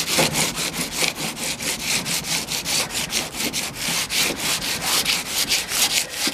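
1000-grit wet sandpaper on a hand sanding block rubbed back and forth over a painted van hood in quick, even strokes of about five a second, a rhythmic rasping hiss. It is knocking down the bigger glitter flakes that stick up through the gloss paint.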